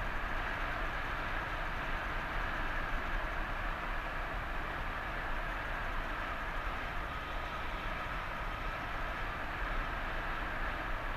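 Steady rush of strong wind buffeting a paraglider pilot's camera microphone in flight, with a deep, even rumble underneath.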